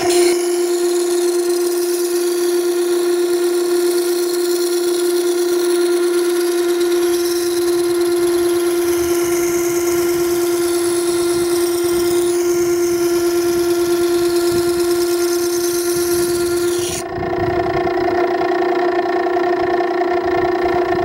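Makita 9820 electric water-stone sharpener running with a steady motor hum while a steel plane iron in a jig is ground against its coarse 120-grit wheel, giving a continuous grinding hiss: rough grinding the bevel back toward 25 degrees. About three-quarters of the way through the hiss stops suddenly as the blade is lifted off, and the motor hum carries on.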